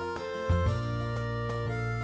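Background music: instrumental notes over a steady bass line, with note changes about every half second.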